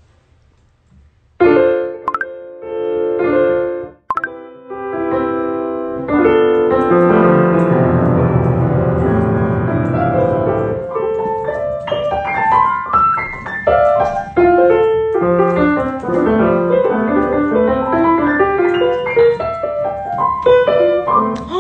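Piano or keyboard being played without singing. A few repeated chords start about a second and a half in, then come held chords over low notes, then a flowing melody of quick single notes.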